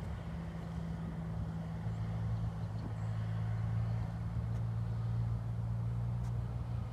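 Low, steady engine drone whose pitch drops slightly about two seconds in.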